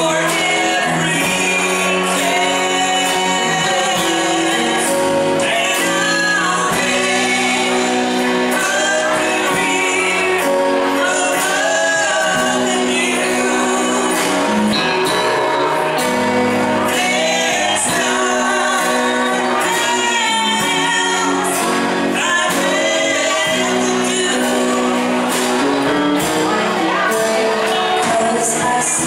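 Live band playing a slow country song: a woman singing over acoustic guitar, electric guitar, electric bass and drums.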